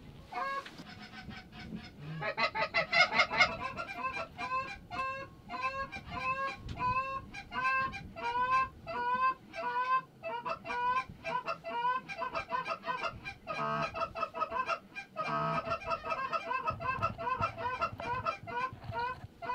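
Canada goose honks and clucks in a fast, steady run of several short calls a second. The run starts about two seconds in and keeps going as the flock works the decoy spread.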